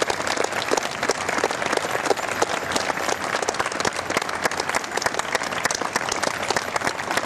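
Audience applauding: many hands clapping at once, steady and unbroken.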